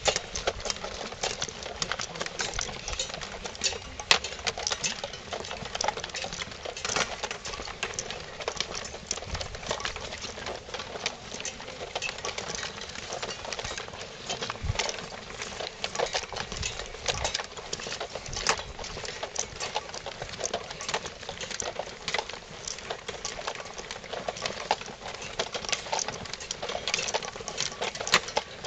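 Many people's footsteps crunching on a dirt and gravel path at a brisk pace, mixed with the rustle and rattle of backpacks and clothing: a dense, irregular stream of crunches and clicks.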